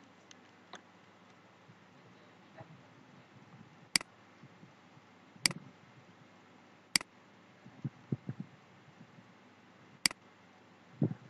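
Computer mouse clicking: four sharp single clicks spaced a second and a half or more apart, with a few soft low thuds between them, over a faint steady hiss.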